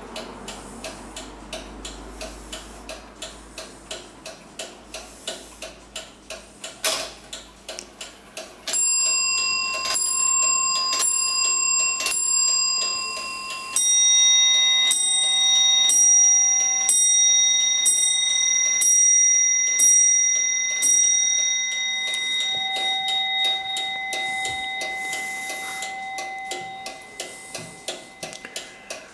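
Antique 18th-century Pierre Jaquet-Droz table clock with a short, fast-swinging pendulum (Tischzappler) ticking quickly, then striking. It gives a run of blows on one bell, then a longer run on a second, lower-pitched bell, whose ringing fades as the ticking carries on.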